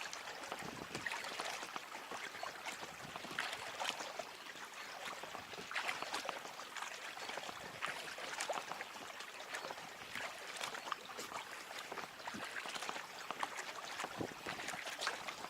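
Packraft paddle strokes in the water: a splash and drip from the blades every couple of seconds over a steady trickle of water.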